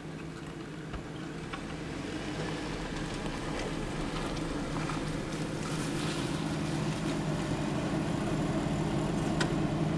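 Jeep Wrangler JK engine running at low crawling speed, growing steadily louder as it approaches and pulls up close, with a few light clicks of stones under the tyres.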